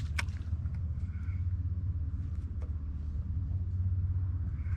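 Wind buffeting the camera's microphone as a steady low rumble, with one sharp click just after the start.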